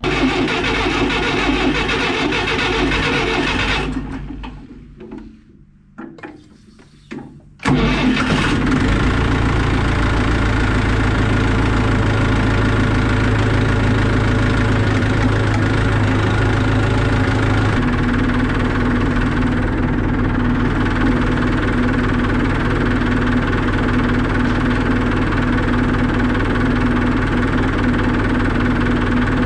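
Tractor engine running, dying away about four seconds in, then starting up again abruptly near eight seconds and running steadily.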